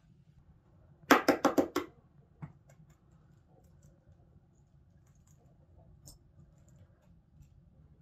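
An eggshell being tapped with a small knife to crack it: a quick run of about six sharp taps, then one more tap.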